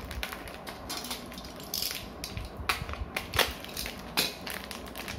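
Plastic packaging crinkling and small plastic Beyblade parts clicking as they are handled, with a few sharp clicks in the second half.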